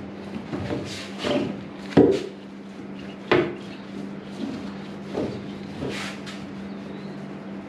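Paint roller being worked over an aluminium jon boat hull to spread a thick coating, with scuffing and two sharp knocks, about two and three seconds in, over a faint steady hum.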